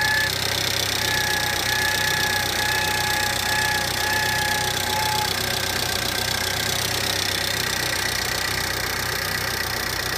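Car engine idling steadily, with a thin high whine from the engine accessories coming and going in short stretches and dying away about halfway through; the whine is an abnormal noise from the accessory drive.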